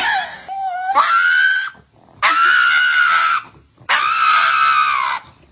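A cat yowling in four loud, high-pitched screams. The first is short and the last three each last about a second, with short gaps between them.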